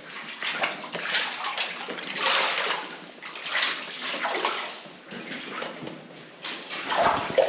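Footsteps wading through shallow water, with a slosh and splash at each step, roughly once a second.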